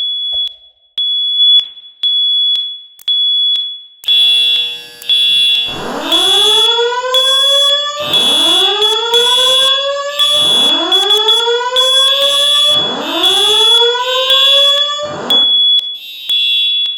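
Fire alarm system sounding its alert: a high-pitched tone beeps about once a second, then from about four seconds in more devices join and a whoop that rises in pitch repeats every two seconds over the high beeps. This is the evacuation signal that alternates with a recorded voice evacuation announcement.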